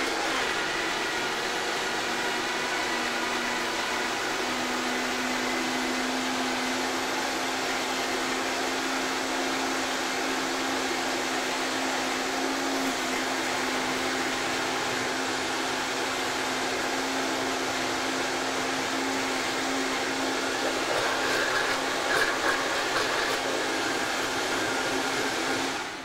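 Countertop blender motor running steadily, blending fruit, yogurt and crushed ice into a smoothie. It grows briefly louder a few seconds before it is switched off at the end.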